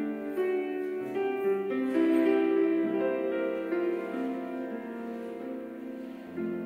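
Slow instrumental keyboard music: a melody of held notes, changing about once a second, over sustained chords.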